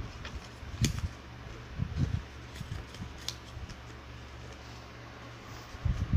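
Origami paper being handled and folded: soft crinkles and a few sharp crisp clicks of the paper, with dull thumps of hands against the surface, over a steady low hum.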